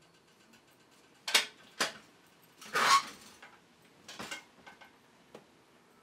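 Metal tins and containers being handled and set down. There are two sharp clanks about a second in, a longer scraping clatter near the middle, then a few lighter knocks.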